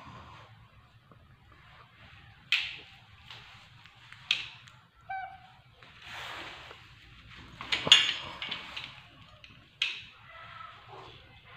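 Baby monkeys clambering on a ledge: several sharp knocks and thumps with rustling in between, and a brief squeaky call about five seconds in.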